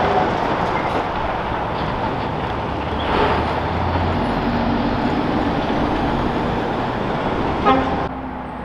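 Heavy city traffic with a truck passing close by: engine and tyre noise, its engine note shifting as it goes. A short sharp sound comes near the end, then the noise drops off suddenly.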